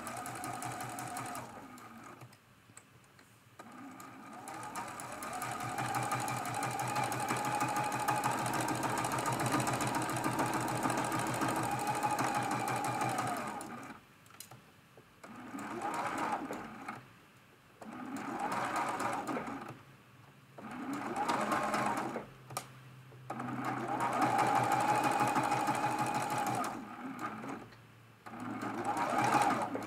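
Domestic sewing machine sewing fabric with a straight stitch in stop-start runs: one long run of about ten seconds, then about five shorter runs of one to three seconds with short pauses between.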